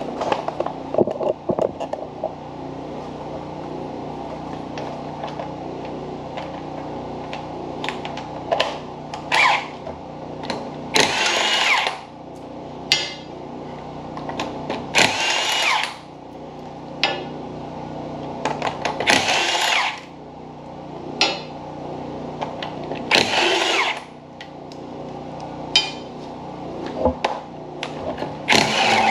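Cordless impact wrench zipping the lug nuts off a car wheel: five short bursts, about four seconds apart, with light clicks and knocks between them over a steady low hum.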